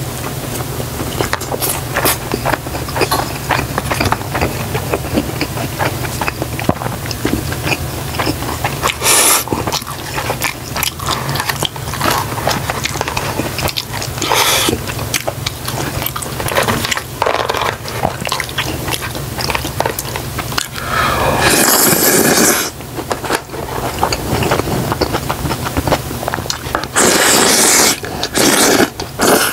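Close-miked eating sounds: steady chewing and biting of a fried dumpling and black-bean-sauce noodles, with chopsticks scraping a plastic bowl. Two longer, loud noisy stretches come about two-thirds of the way in and near the end, where the bowl is tipped up to the mouth to slurp. A steady low hum runs underneath.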